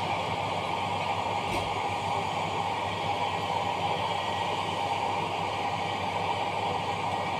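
Steady, even hiss of background air or machine noise, with one faint tick about a second and a half in.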